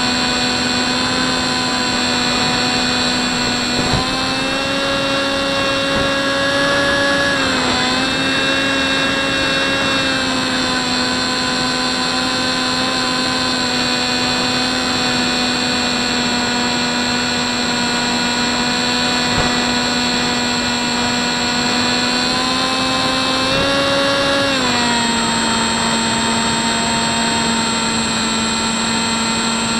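Electric motor and propeller of a Hubsan Spyhawk RC plane whining steadily, heard from the camera mounted on the plane. The pitch steps up with throttle about four seconds in, dips briefly, then rises again and drops back about 25 seconds in.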